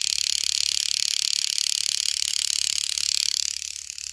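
Battery-powered TOMY Arthur toy train engine running, its small motor and gears giving a very loud high whir with a rapid fine ticking. The whir drops to a lower level a little before the end.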